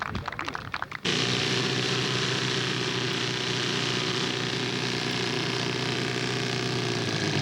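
Radio-controlled model airplane engine running steadily at close range, coming in abruptly about a second in.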